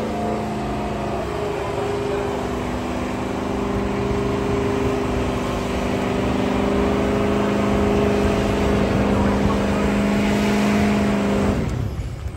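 Ford Super Duty diesel pickup engine held at high revs in a burnout, tyres spinning on pavement under a steady, loud engine note that cuts off sharply near the end.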